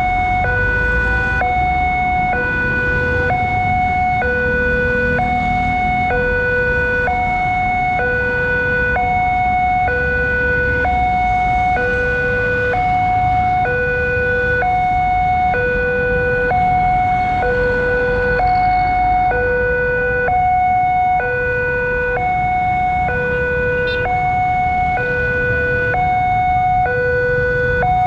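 Railway level-crossing warning alarm sounding from the crossing's loudspeaker. It is an electronic hi-lo signal that switches steadily between a higher and a lower tone about once a second, and it warns that a train is approaching while the barrier is down.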